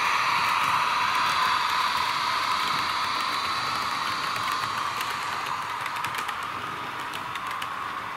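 H0-scale PIKO EU07 electric locomotive model with an onboard sound module, giving a steady hissing running sound that slowly fades as the locomotive moves away. From about six seconds in, the passing wagons' wheels click irregularly on the track.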